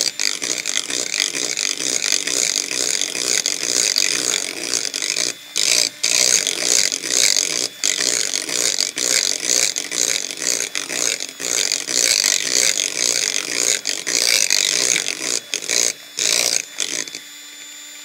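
Electric hand mixer beating thick red velvet cake batter in a glass bowl: a loud, harsh rattle of the beaters churning the batter, broken by a few brief pauses. About a second before the end the rattle stops and only the motor's steady hum is left.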